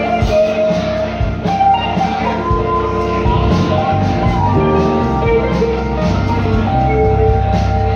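A live band playing an instrumental passage: electric guitar, electric bass, keyboards and drum kit, with long held notes over a steady beat.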